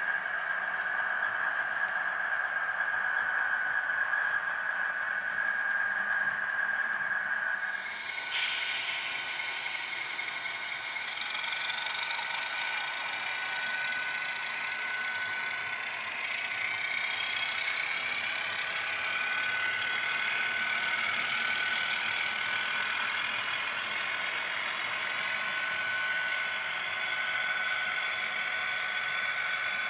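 Model trains running on a layout: a steady whine from the locomotive motors over the rattle of wheels on the track, with little bass. The mix changes about eight seconds in.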